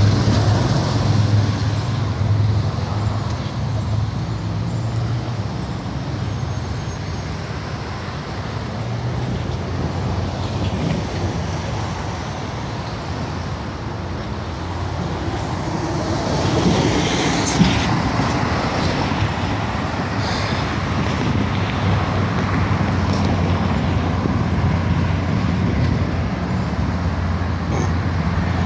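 Steady road traffic on a busy street, vehicles running and passing, with a louder passing vehicle a little past halfway.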